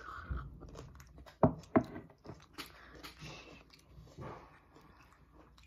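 Quiet sounds of drinking milk from a glass, with small handling clicks. Two sharp knocks come close together about a second and a half in.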